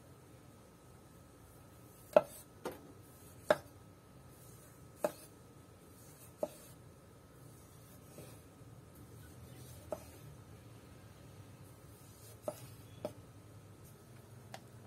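Kitchen knife slicing a tomato on a wooden cutting board: a series of sharp, irregularly spaced knocks as the blade meets the board.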